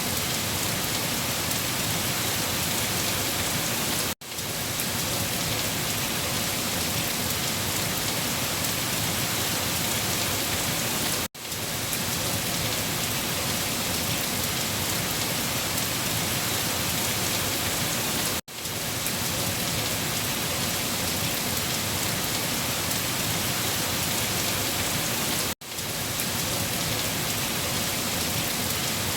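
Heavy rain falling on leaves, a steady dense hiss of drops, cut by a brief sudden dropout about every seven seconds before fading straight back in.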